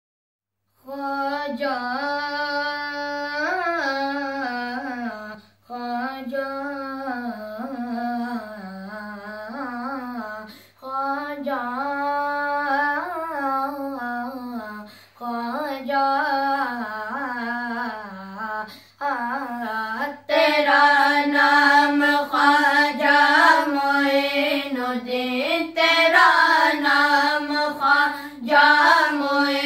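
Boys singing an unaccompanied devotional manqabat: one boy's voice sings the opening phrases alone, in breaths a few seconds long, and about twenty seconds in the other boys join in unison, louder.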